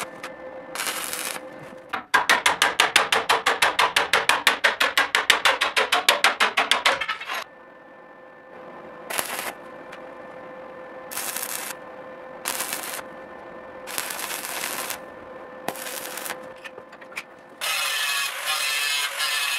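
Electric welding on a steel rail: a long weld that pulses about nine times a second, then several short bursts as separate tack welds are laid. Near the end an angle grinder cuts into the steel.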